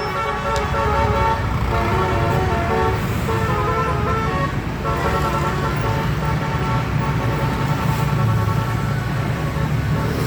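Telolet basuri musical bus horns playing a melody of held notes that step from pitch to pitch, over the low rumble of bus engines.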